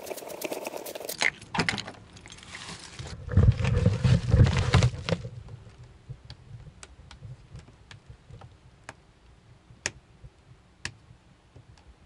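Footsteps and handling noise over dry leaves, with heavy thumps about three to five seconds in as the box truck camper is entered. Then about nine sharp single clicks, half a second to a second apart, as the rocker switches on the camper's 12-volt switch panel are flicked one after another.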